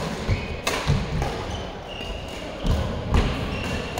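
Badminton rally on an indoor court: rackets strike the shuttlecock with sharp cracks a few times, over players' footfalls thudding and shoes squeaking on the court mat.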